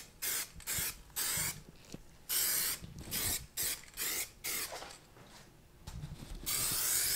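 Aerosol spray can of trim black paint hissing in a quick series of short bursts, about a dozen, as a first coat goes onto a car's underbody. A pause comes about five seconds in, then one longer spray near the end.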